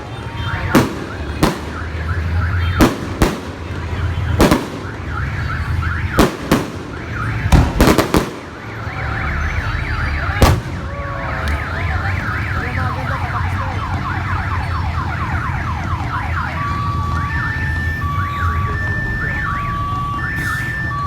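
Fireworks exploding in a rapid series of sharp bangs for about the first ten seconds, mixed with whistling shells, then a dense run of short whistles. In the last few seconds a two-tone alarm sounds, alternating steadily between a low and a high pitch.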